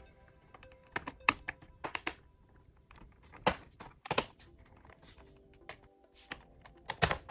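Scattered sharp plastic clicks and snaps from an Apple iBook G3 clamshell's top case as it is worked loose by hand and its clips let go. The loudest come about a second in and in a quick cluster near the end.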